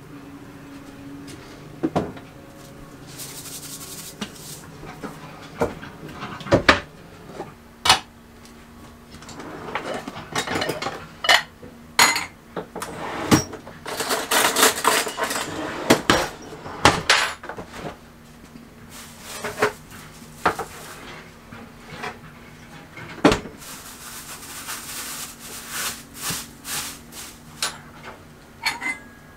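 Kitchen clatter while cooking on a gas hob: metal pots, lids and utensils clanking and clinking at irregular intervals, with a few longer rasping noises between the knocks.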